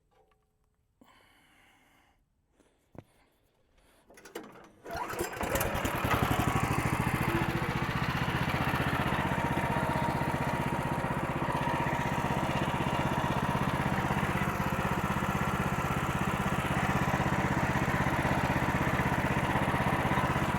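Gas engine of a Woodland Mills HM126 bandsaw mill starting about five seconds in, then running steadily. Before that, only a few faint clicks and knocks.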